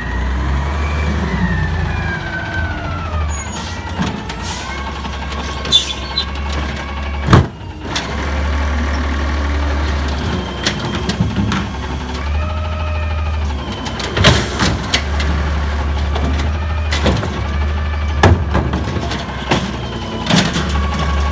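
Natural-gas Freightliner M2 garbage truck running with a steady low engine drone, its hydraulic whine rising and falling as the Amrep automated side-loader arm lifts, dumps and returns a cart. Several sharp bangs as the upended cart is shaken out and lids slam, the loudest about seven seconds in.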